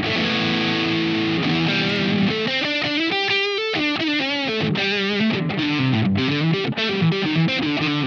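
Tokai LS-129 Les Paul-style electric guitar with PAF-style humbuckers played through an overdriven tone: a held chord rings first, then a single-note lead line with notes shaken by vibrato, and toward the end a quicker riff of short, clipped phrases.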